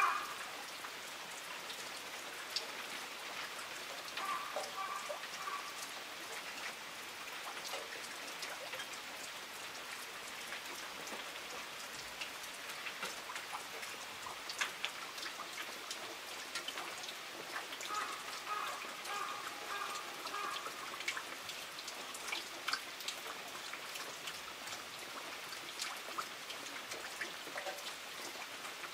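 Steady rain falling, with many individual drops ticking sharply on nearby surfaces.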